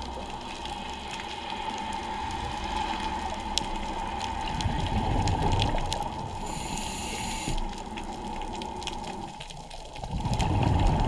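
Scuba breathing heard underwater through the camera housing: a regulator inhale hissing about six and a half seconds in, and exhaled bubbles gurgling low around five seconds in and again near the end.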